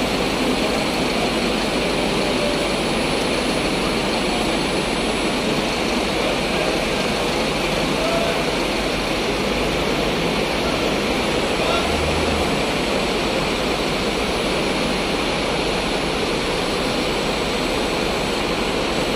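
Steady din of a covered bus terminal: bus engines idling under the roof, with crowd chatter mixed in.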